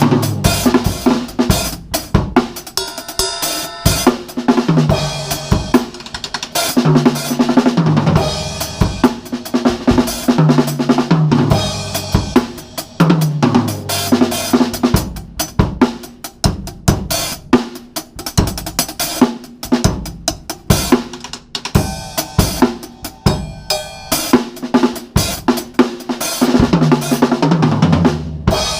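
Acoustic drum kit played continuously with the snare wires on: snare, bass drum, hi-hat and cymbals, with several fills running down the toms, recorded through a GoPro's microphone.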